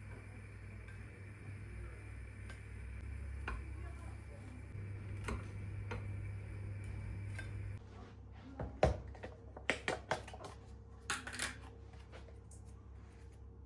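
Dishes and utensils being handled: a run of sharp clinks and knocks in the second half, over a low steady hum.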